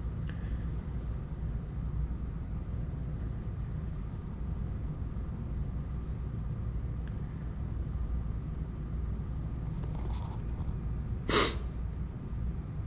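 Steady low rumble of street traffic, with one short, loud hiss about eleven seconds in.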